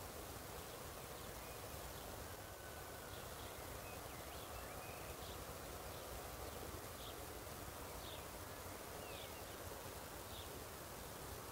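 Faint rural field ambience: a steady hiss of wind moving through a wheat field, with faint short high chirps repeating roughly once a second.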